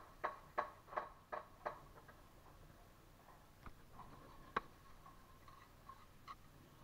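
Six quick sharp taps, about three a second, then a few single taps: a bricklayer's steel trowel tapping a brick down into its mortar bed to bring it to the line.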